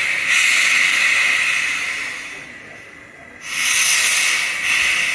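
Steam locomotive's open cylinder drain cocks hissing as it starts to move off: two long hisses of steam, the second starting about three and a half seconds in.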